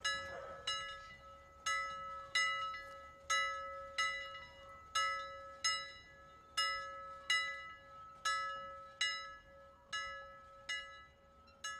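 Intro music made of a single bell-like note struck over and over, each strike ringing briefly and fading, in a repeating short-long rhythm.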